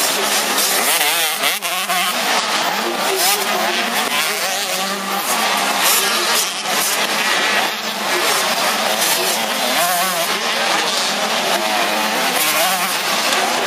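Several 85 cc two-stroke motocross bikes racing, their engine notes overlapping and repeatedly rising and falling as the riders throttle off into a corner and back on out of it.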